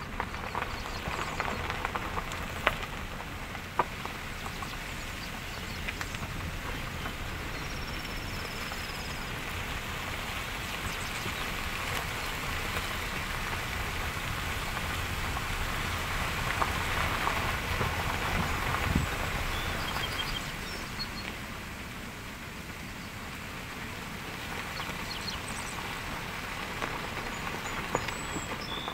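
Steady hissing rush of outdoor ambience, like wind in leaves or light rain, swelling toward the middle and easing again, with a few faint high chirps. Two sharp knocks come about three and four seconds in.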